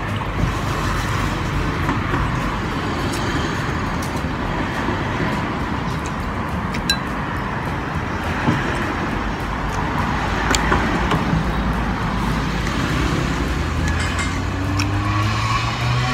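Steady traffic noise, with an engine rising in pitch near the end, and a few sharp clinks of bowls and cutlery.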